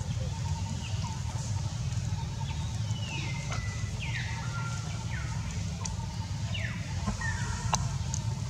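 A run of five or six short, high animal calls, each sliding downward and then levelling off, in the second half, over a steady low rumble.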